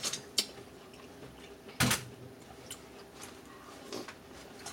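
Mouth sounds of eating buttered corn on the cob: scattered short wet clicks and smacks from biting and chewing, the loudest about two seconds in.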